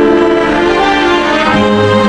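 Orchestral instrumental music with sustained bowed strings, a low bass note coming in about one and a half seconds in.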